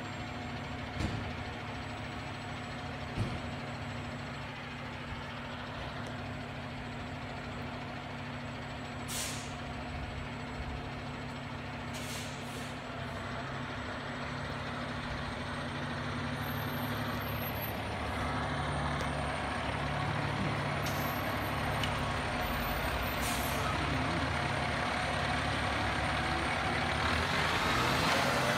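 Fire ladder truck's diesel engine running steadily, getting louder near the end as the truck pulls out, with a few short hisses from its air brakes.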